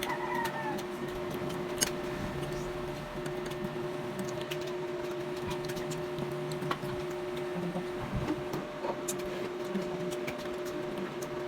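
A steady mechanical hum with scattered light clicks and taps.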